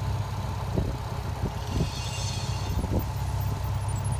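Nissan 350Z's V6 engine idling steadily, with a few faint clicks over it.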